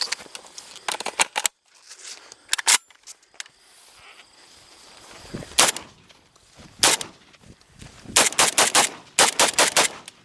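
Gunfire: several single sharp shots spaced a second or more apart, then near the end two quick strings of rapid shots.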